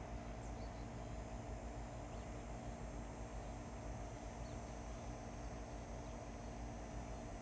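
Outdoor ambience: a steady, high-pitched insect chorus over a low, steady rumble.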